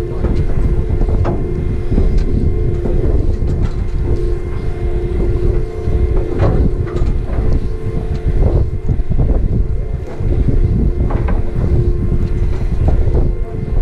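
A boat's engine droning steadily, with wind buffeting the microphone and a few knocks about halfway through and near the end.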